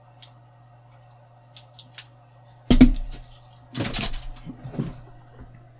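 Small hard parts being handled and set down: a few light clicks, a knock about two and a half seconds in, then a brief clatter, over a steady low hum.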